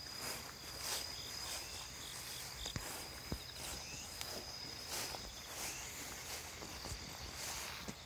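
Insects trilling in the grass: one steady high-pitched trill, with a second pulsing trill that comes and goes. Footsteps on a grassy dirt track are heard under them.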